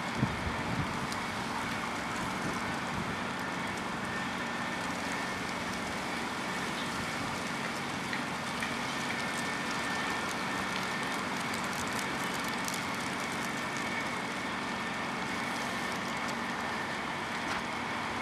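Istobal gantry bus wash at work: a steady wash of water spray and a rotating brush scrubbing against the bus, over a steady machine hum and a faint high whine.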